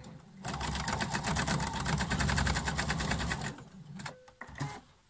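Electric domestic sewing machine running at speed, the needle stitching in a fast, even rhythm for about three seconds before it stops.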